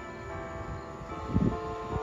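Church bells ringing, many overlapping tones hanging on and fading, with a fresh strike a little after a second in. A low thump sounds about one and a half seconds in.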